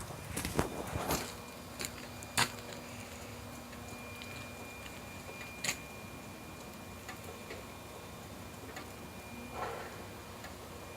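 Irregular light clicks and knocks, several close together in the first few seconds and one more near the middle, over a faint steady high tone.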